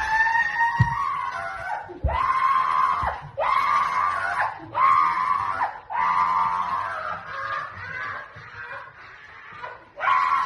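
A person screaming in fright over and over: a string of about six long, high-pitched screams with short breaks between them.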